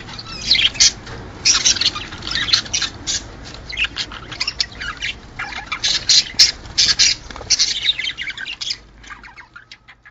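Budgerigars chattering and squawking together, many short overlapping calls, the kind of flock chatter played to stimulate budgies to breed; the calls thin out near the end.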